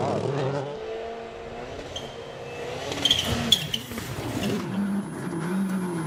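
Turbocharged rally car engine on a gravel stage, its note falling off in the first couple of seconds and picking up again near the end, with a few sharp cracks about three seconds in.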